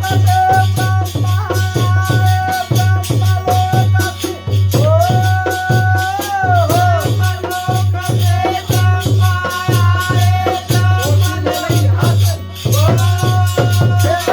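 Holi folk music: a drum keeps a steady beat under jingling rattle-type percussion, with a held melody line that bends in pitch near the middle and again near the end.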